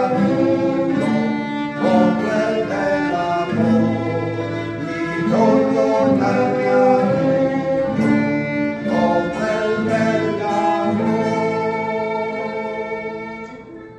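Violin and classical guitar playing a slow, song-like melody together. The piece comes to its final held note, which fades out near the end.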